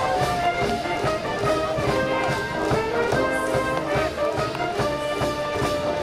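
A school brass band playing a tune: held brass notes moving from pitch to pitch over a steady beat.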